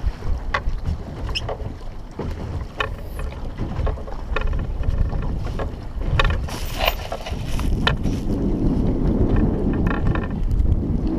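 Wind buffeting the microphone and choppy water against a small boat's hull, the rumble growing stronger over the last few seconds, with scattered sharp clicks and knocks.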